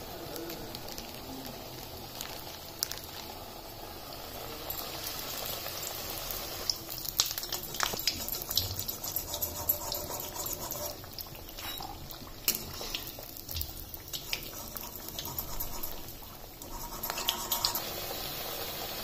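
Rice-flour onion fritters deep-frying in hot oil in a kadai: a steady sizzle with sharp crackles and pops, growing denser from about five seconds in.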